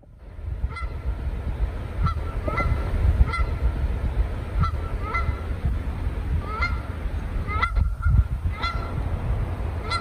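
Canada geese honking: a dozen or so short calls at uneven intervals, over a steady low rumble.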